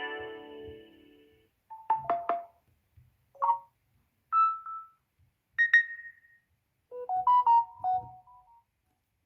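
Samsung Galaxy S10 ringtone sounds: an electronic chord that fades over about a second and a half, then a string of short chimes and two quick melodic phrases, each separated by brief silences.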